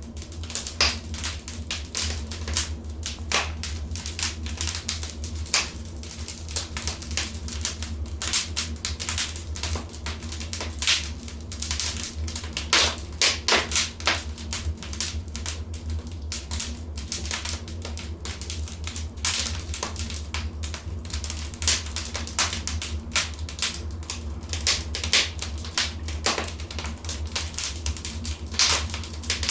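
Wood fire crackling in a fireplace: dense, irregular sharp pops and snaps over a steady low rumble.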